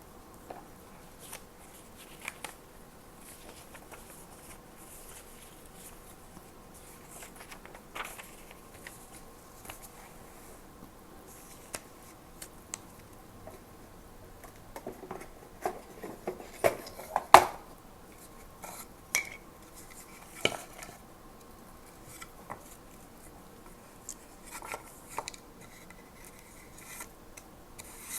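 Small hard stationery items being handled and set down, making scattered clicks and clinks. A busier run of sharper clicks comes a little past halfway, with the loudest among them.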